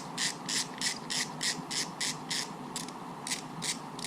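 Ratcheting screwdriver clicking in a steady rhythm, about three strokes a second, as a screw is backed out of an RC truck's front differential. The strokes thin out and stop near the end.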